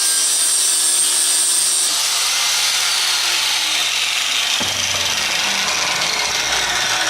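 Inexpensive Harbor Freight angle grinder grinding the rivet pins off dirt bike chain links: a steady, harsh metal-grinding sound. Partway through, the motor's pitch sags.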